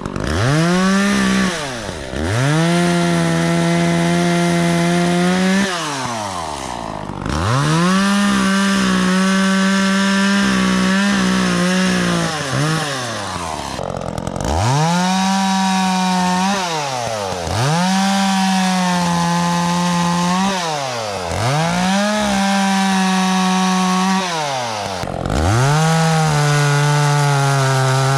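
Echo CS-400 two-stroke chainsaw cutting wood, repeatedly revved to full throttle and let back down to idle, about seven times in a row.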